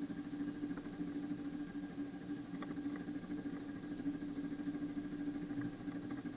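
Renault car engine idling steadily, just caught after a hard, long crank, then cutting off right at the end.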